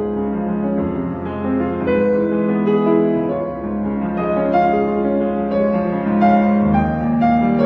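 Background music led by a slow, gentle piano, sustained notes changing about once a second.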